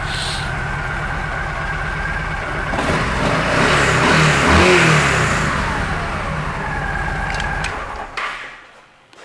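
The 2008 Yamaha V Star 1300's V-twin engine idling, revved once about four seconds in, its pitch rising then falling back to idle. About eight seconds in it is shut off and the sound dies away.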